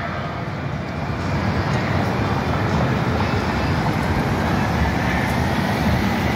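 City street traffic: a steady wash of vehicle and tyre noise that grows a little louder about a second in, with a faint slowly rising whine in the second half and a car passing close near the end.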